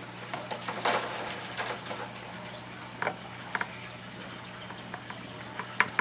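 Small handling noises as flexible fuel tubing is worked onto a fitting on an RC car's plastic fuel tank: a brief rustle about a second in, then a few sharp little clicks and taps, over a steady low hum.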